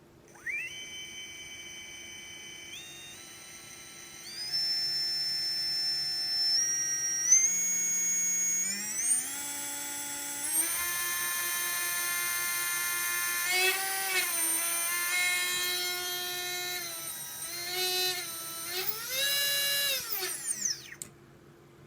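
Readytosky 1804 brushless drone motor whining as it is throttled up in steps, its pitch climbing stage by stage, then wavering up and down before it spins down and stops near the end. The motors are ones the owner says have bad bearings and severe vibration.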